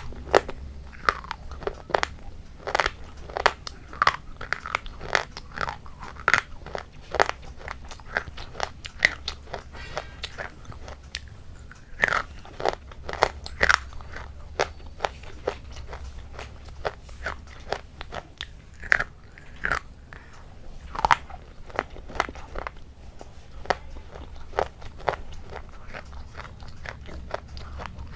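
Close-miked eating: crisp, irregular crunching bites and chewing of crunchy food, some crunches much louder than others, over a low steady hum.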